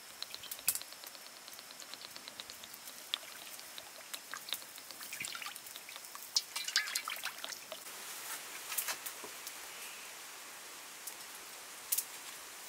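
Scattered crackles and pops from a wood cooking fire burning under a steel wok of heating oil, some coming in quick clusters.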